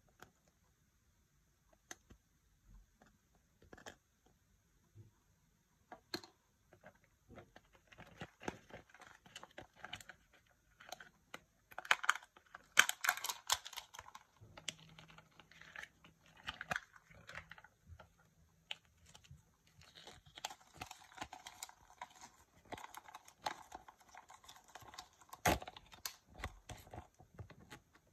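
Hands handling small plastic toy parts and a Kinder Joy plastic capsule: scattered light clicks, then a denser crackle about halfway through as the capsule's sealed lid is peeled off. Paper rustles as a folded instruction leaflet is opened, with one sharp click a few seconds before the end.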